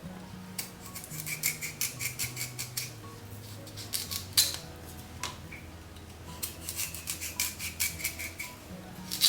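Sweet potato being sliced: two runs of quick, crisp cutting strokes with a few single sharper clicks between them. Faint background music underneath.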